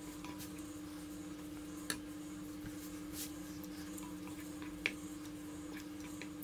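Wooden spatula stirring cottage cheese in hot milk in a saucepan, with soft squishing and a few light taps against the pot. A faint steady hum runs underneath.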